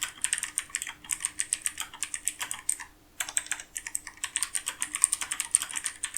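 Typing on a Gigaware K26 mechanical keyboard with clicky UX Blue switches: a fast run of sharp key clicks, with a brief pause about three seconds in.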